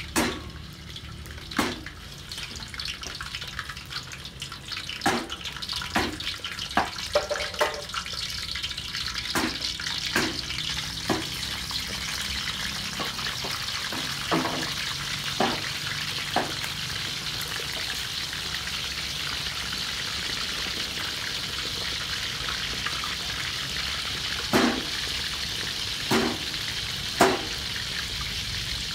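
Fish frying in hot oil in a wok, a steady sizzle that swells and gets louder after several seconds. Metal tongs click and clack against the wok and the fish many times, most often in the first half and again a few times near the end.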